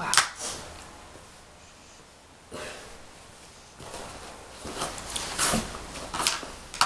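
Makeup pencils and small plastic cosmetics clicking and rustling as they are rummaged through in a makeup bag. There is a sharp knock just after the start and a run of small clicks and rustles in the second half.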